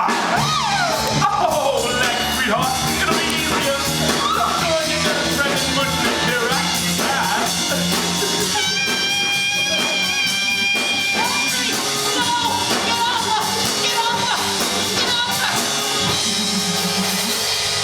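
A song from a stage musical: a singer with a rock-and-blues band, one note held for a few seconds near the middle.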